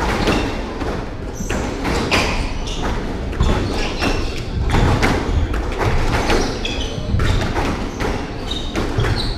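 Squash rally on a hardwood court: a series of sharp hits as the ball strikes the racquets and walls, with sneaker squeaks on the wooden floor between them.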